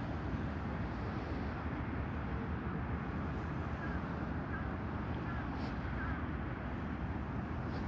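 Steady outdoor wind rumble on the microphone, with a few faint high chirps partway through.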